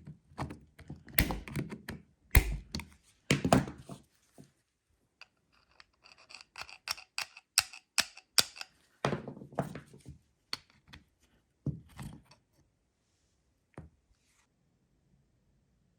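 Irregular knocks, taps and clicks of the rusty Nagant revolver's metal parts and tools being handled. There are heavier knocks in the first few seconds, a quicker run of lighter clicks in the middle, and a few last taps near the end.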